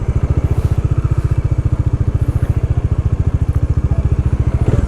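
Bajaj Dominar 400's single-cylinder engine running steadily, its exhaust beating in rapid, even pulses.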